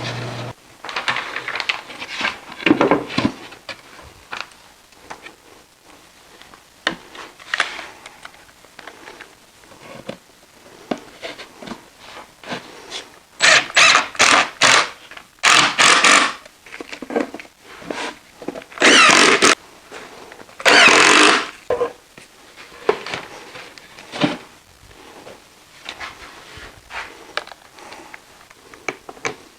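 Shop work on wood: a steady machine hum stops about half a second in, followed by irregular short scraping and rubbing strokes, loudest in bursts around the middle.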